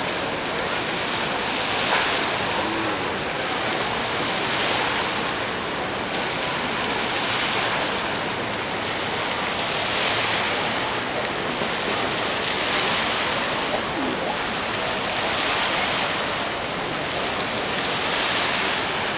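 Fountain jets spraying and splashing back into a lake: a steady rush of falling water that swells and eases about every two and a half seconds.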